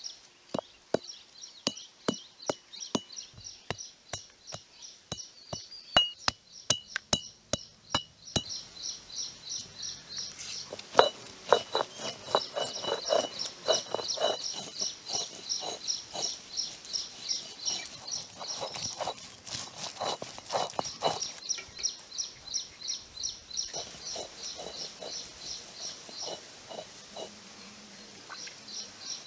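Stone roller crushing and grinding fresh turmeric on a flat stone grinding slab (ammi): rapid sharp knocks of stone on stone for the first eight seconds or so, then softer rolling, grinding strokes. A bird chirps quickly and steadily in the background.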